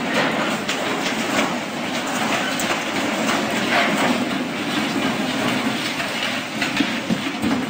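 Floodwater rushing hard in a torrent, with a steady stream of knocks and cracks from a boat hull and debris being swept and smashed along in it.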